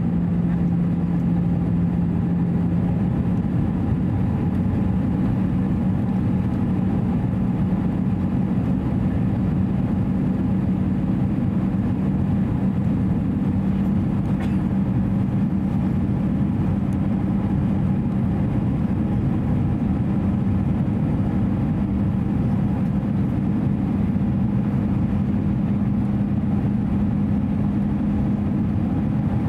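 Airbus A320-214 cabin noise: a steady rush of engine and airflow noise with a steady engine hum, whose pitch steps up slightly about three seconds in.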